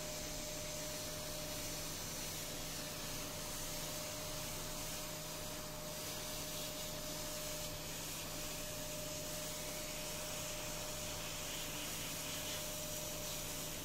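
Hot air rework station blowing a steady hiss of hot air, with a faint steady tone from its blower, as it heats the rusted area of a computer motherboard.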